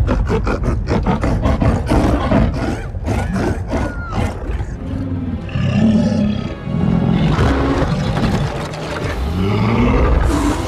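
Sound-designed vocalizations of Skar King, a giant ape monster, laughing and snarling. It opens with a fast run of sharp grunting pulses, then gives way about halfway through to slower, deep, growling laughs.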